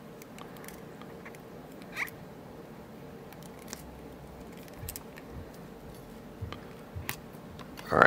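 Faint handling noise with a few scattered small clicks, the clearest about two seconds in, from a laminated steel padlock being taken apart by hand as the small pins at its side are worked out.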